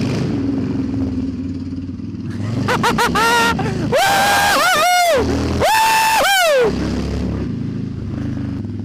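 Cruiser motorcycle engine running steadily under way. From about three seconds in, a loud high-pitched sliding tone cuts over it: a few quick short notes, then two long held notes that bend and glide down at their ends, stopping about seven seconds in.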